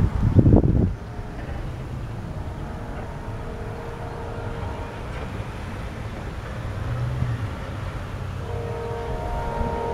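A gust of wind buffets the microphone for about the first second. Then a distant Amtrak P42DC diesel locomotive sounds its chime horn twice: a short blast a few seconds in and a longer one near the end, over a faint low rumble from the approaching train.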